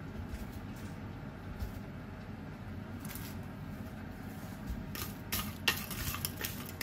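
Wooden spatula stirring sliced onions in an enamelled cast-iron pot, a quick run of scrapes and clicks starting about five seconds in, over a low steady hum. The onions give no sizzle, because the enamel pot has not yet heated up.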